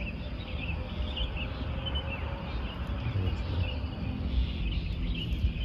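Birds chirping, many short high calls scattered throughout, over a steady low rumble.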